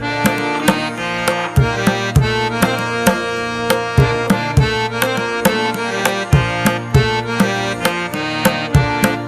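Instrumental background music with a drum beat under a melodic instrument.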